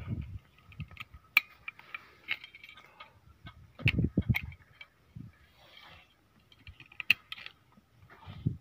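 Scattered sharp metallic clicks and light scraping of a screwdriver and steel springs being worked into a combine's disc brake assembly, with a duller knock of metal about four seconds in.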